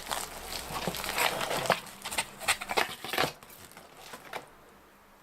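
Packaging rustling and crinkling as a new graphics card is handled, a quick run of sharp crackles and clicks that dies away about three seconds in.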